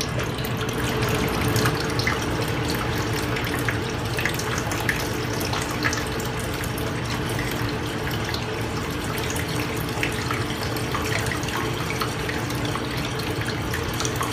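Water running steadily through a blue bowl gold concentrator, swirling around the bowl with many small splashes and trickles, over a faint steady hum.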